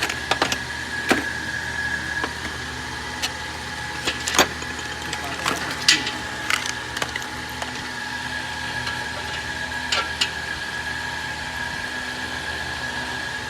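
Toyota 1FZ straight-six engine running at a steady idle with a constant high whine, broken by irregular sharp clicks. The engine has a misfire.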